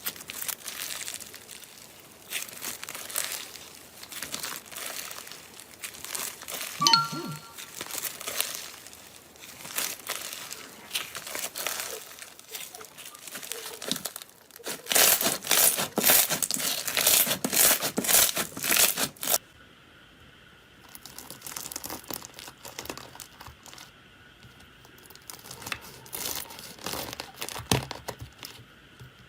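Crunchy slime-type material crackling and crinkling as it is squeezed and crushed, with dense rapid crackles that are loudest in a burst about halfway through, then lighter crackles near the end.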